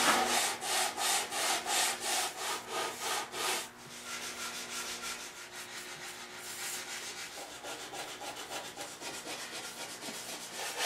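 Bristle brush rubbing back and forth on wooden chair parts as a coat of shellac is applied, about three scratchy strokes a second, then fainter and quicker strokes after about four seconds.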